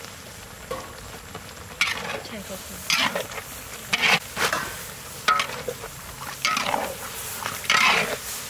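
Stir-frying in a large metal wok: a metal spatula scrapes and tosses chopped herbs and greens through sizzling beef intestine, in strokes about once a second that start about two seconds in.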